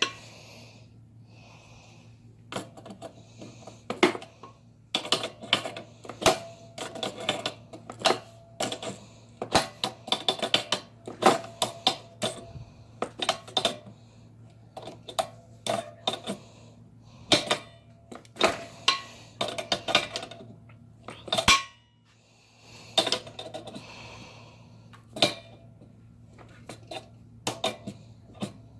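Small metal tools and fittings being handled: irregular clinks, clicks and rattles, some with a brief metallic ring, over a steady low hum.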